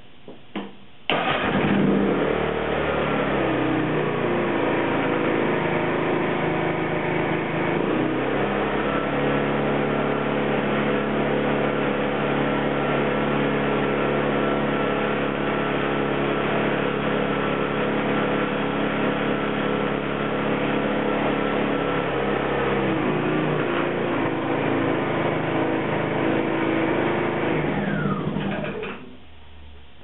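Lifan ESi2600IER inverter generator engine starting about a second in and running steadily, its engine speed shifting a couple of times. Near the end it shuts down, its pitch falling as it winds down.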